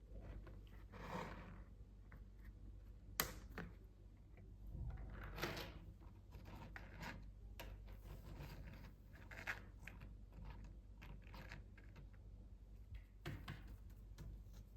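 Faint handling of plastic toy pieces and packaging: scattered clicks, taps and short rustling scrapes, with a sharper click about three seconds in.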